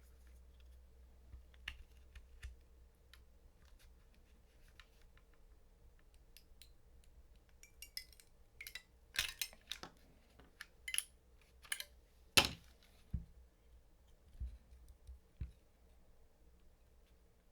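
Scattered small clicks and taps of hard plastic and metal parts being handled while prying apart a cordless-tool battery pack. A cluster of sharper knocks comes in the middle, the loudest about twelve seconds in.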